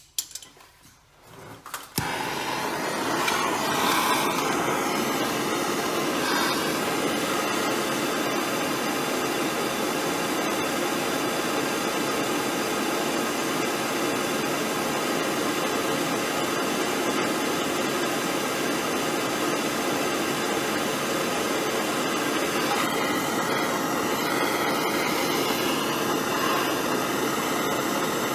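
Hand-held gas torch lighting with a click about two seconds in, then burning with a steady hiss as its flame heats rusted exhaust hardware to free it.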